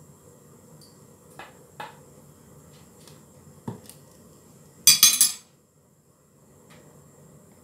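Metal spoon clinking lightly against small ceramic ramekins while vinegar is measured out, a few single clinks, then a louder rattling clatter of kitchenware about five seconds in.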